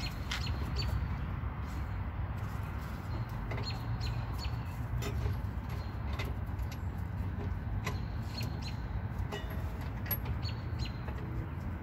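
Light metal clicks and taps at irregular moments as a bolt, washers and a wrench are handled at a car's lower shock-absorber mount, over a steady low rumble.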